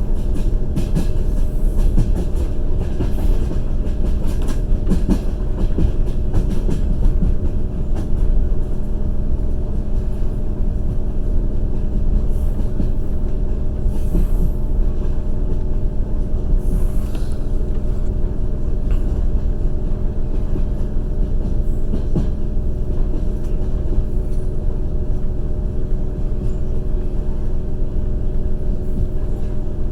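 Passenger train running along the line, heard from inside the carriage: a steady rumble and low hum, with the wheels clacking over rail joints, most busily in the first several seconds and more sparsely after.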